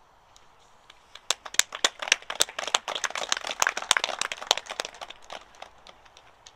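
A small group of people clapping, starting about a second in, with the claps thinning out and stopping near the end.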